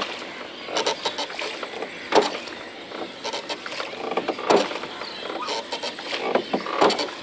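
Wooden sampan being rowed by hand: the oar creaks in its wooden pivot with each stroke, a strong stroke every two seconds or so in a steady rhythm, with water swishing.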